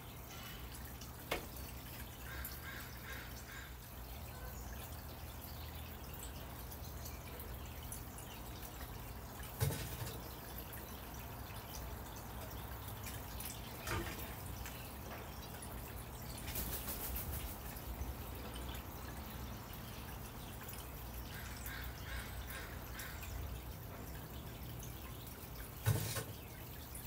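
Northwestern crow feeding at a ceramic bowl on a wooden bench: a few sharp knocks and taps spaced several seconds apart, the loudest about ten seconds in and near the end, with wing flaps as it hops down, over a steady low hum.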